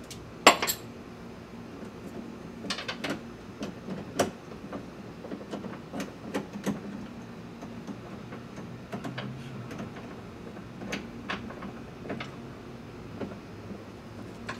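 Irregular metal clinks and knocks from hands working on parts inside a pickup truck's stripped door frame, with the sharpest clank about half a second in.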